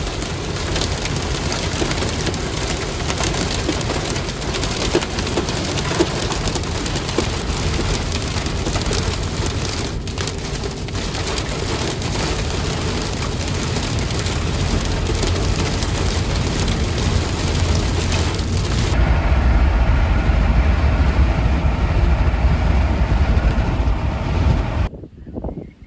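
Heavy rain pounding on a vehicle, a dense steady hiss. About two-thirds of the way through, the hiss thins and a low rumble takes over, and near the end the sound cuts off suddenly.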